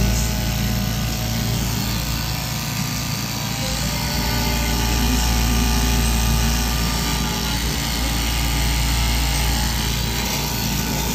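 Upright straight-knife cutting machine running steadily, its vertical reciprocating blade cutting through a thick stack of layered sheet material, with a constant low motor hum.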